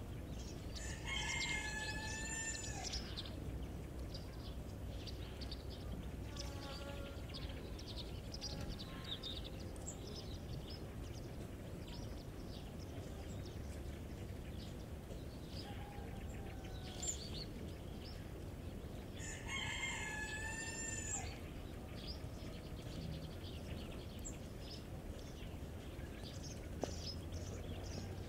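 A rooster crowing twice, each crow about two seconds long, one about a second in and one about twenty seconds in, with fainter calls between them. Chicks peep throughout.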